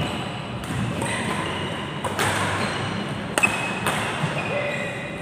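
Badminton rally: rackets striking a shuttlecock about once a second, sharp cracks with a short ring of hall echo after each, mixed with brief high squeaks of shoes on the court floor.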